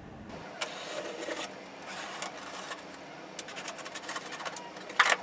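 Box cutter slicing through packing tape on a cardboard box: a continuous scraping rasp with many small clicks, and a louder sharp scuff of cardboard near the end.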